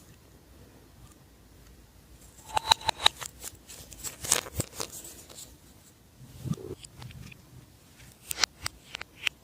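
Slime being pressed and worked by hand, giving clusters of sharp crackling clicks and pops: a busy run about two and a half seconds in and another near the end, with a softer, lower squelch in between.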